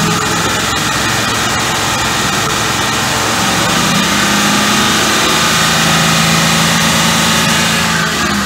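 Pickup truck engine held at high revs, over 3000 RPM, running steadily for an exhaust back-pressure test, easing off slightly near the end.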